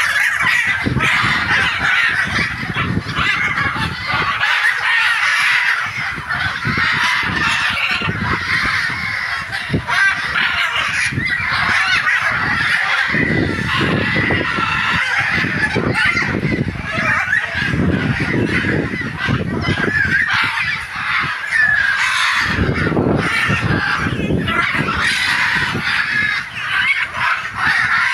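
A flock of red macaws squawking, many loud calls overlapping without a break.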